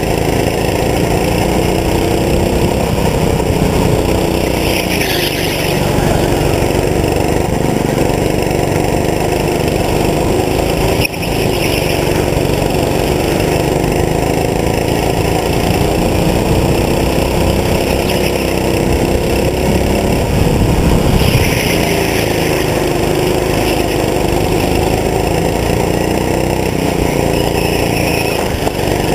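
Go-kart engine running hard, its pitch rising and falling as the kart speeds up on the straights and slows for the corners. There is a brief knock about eleven seconds in.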